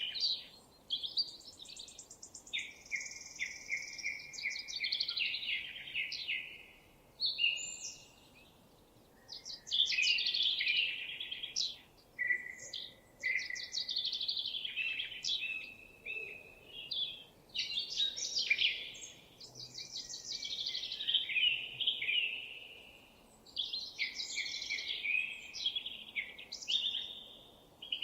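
A songbird singing rapid, varied phrases of quick notes and trills, often falling in pitch. A new phrase comes every few seconds, with short pauses between.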